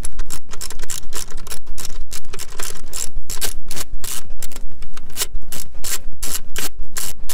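A 1/4-inch drive ratchet on an extension and 10 mm deep socket, clicking rapidly as it is worked back and forth to back out a 10 mm bolt.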